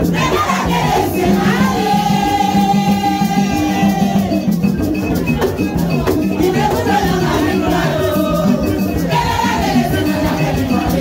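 Group singing over steady drumming and a shaken rattle, with a long held sung note a couple of seconds in: live Haitian Vodou ceremony music.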